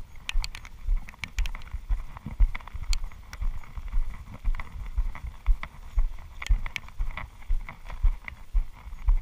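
Footsteps of someone walking over grass while carrying the camera: low thumps about twice a second, with small clicks and rattles from the jostled camera.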